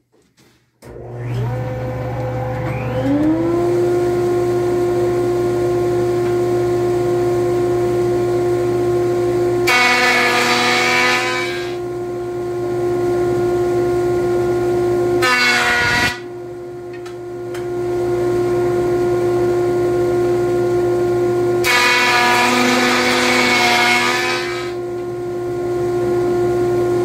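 A 6-inch jointer switched on, its motor spinning up over a couple of seconds to a steady whine. Its cutterhead then planes the rough face of a maple board in three passes, each a loud rushing cut lasting one to two and a half seconds.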